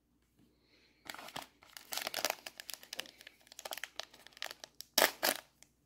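Foil wrapper of a trading-card pack crinkling and crackling in the hands as it is picked up and opened. The crinkling starts about a second in, with louder crinkles near the end.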